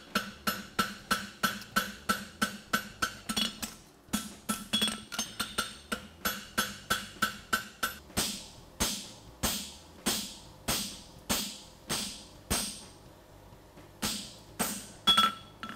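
Hand hammer striking a red-hot steel horseshoe on an anvil, with a ringing tone after each blow. The strikes come quickly, about four a second, for the first half, then slower, heavier blows about two a second drive a fullering tool into the shoe to crease the nail groove, with a short pause and a few last blows near the end.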